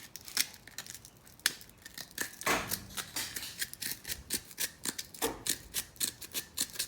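Hand cutting tool trimming the points of a homemade play-button cut-out, with a rapid, irregular run of sharp snips and clicks and a couple of longer scraping strokes about two and a half and five seconds in.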